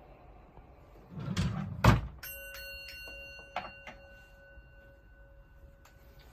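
A Buddhist altar bowl bell (orin) struck once after a short rustle and knock, its bright metallic tone ringing on and slowly fading; a light tap sounds about a second and a half after the strike.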